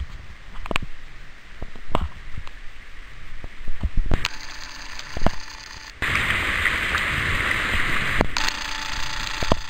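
River rapids rushing, with scattered sharp clicks and knocks over the first six seconds. About six seconds in the rush of water jumps sharply louder and stays steady.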